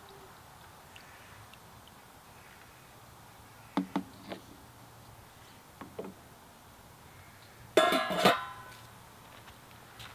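Two sharp knocks about four seconds in and a softer one a little later, then a louder clatter with a ringing edge near the end, over quiet room tone.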